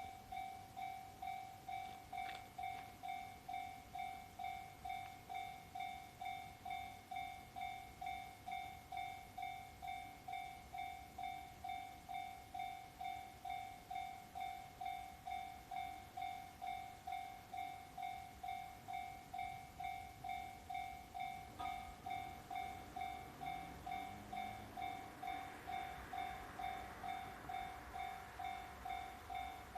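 Level-crossing warning bell ringing in an even, rapid repeat of a little under two strokes a second. In the last third, an approaching E531-series electric train adds a growing rumble and a briefly rising motor whine.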